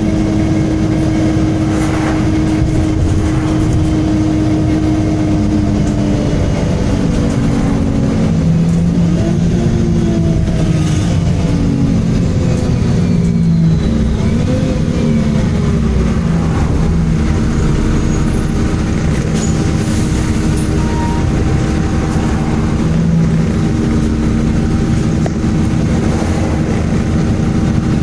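MAN Enviro 300 single-deck bus on the move: a steady diesel engine drone with road rumble. Its tones fall and rise in pitch between about 8 and 16 seconds in as the bus changes speed, then settle again.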